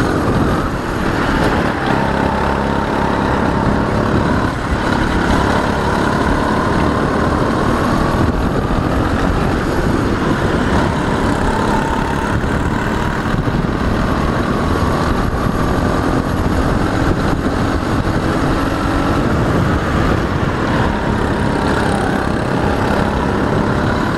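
Go-kart engine running hard from onboard the kart, its pitch rising and falling as the kart speeds up and slows for corners.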